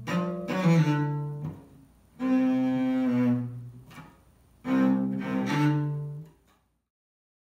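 Cello bowed in three short phrases of a few notes each, with brief gaps between them. The last phrase cuts off suddenly before the end.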